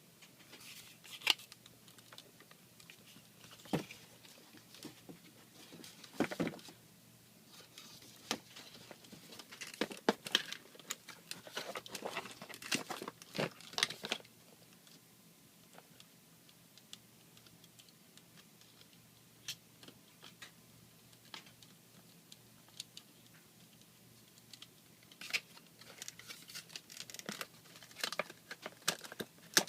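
Plastic packaging of a GoPro Hero 3 Black Edition being handled and unpacked: crinkling, small tearing and clicking noises in bursts, with a quieter stretch of a few scattered clicks in the middle.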